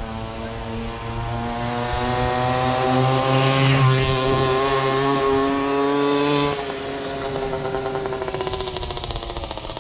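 Tuned 60cc two-stroke Babetta 207 moped with a handmade tuned pipe riding past: the engine note rises in pitch and loudness as it approaches and is loudest as it passes about four seconds in. At about six and a half seconds the sound drops suddenly, and it then fades as the moped rides away.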